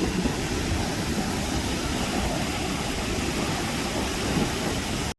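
Waterfall rushing: a steady wash of falling water, cutting off suddenly near the end.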